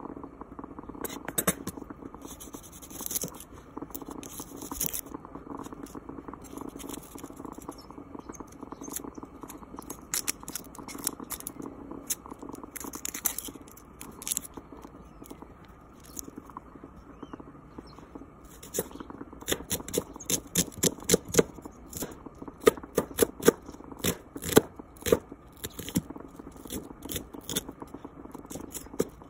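Kitchen knife chopping garlic and onion on a cutting board: scattered knocks at first, then a fast run of sharp knocks against the board through the latter part, over a steady low hum.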